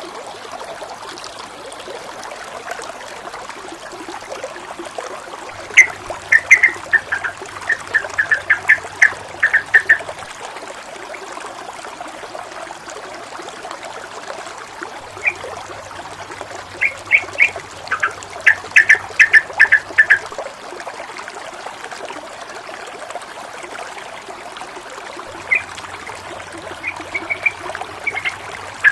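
Fast-flowing water running and gurgling steadily. Three times, a bird breaks in with a burst of short, sharp calls repeated several times a second.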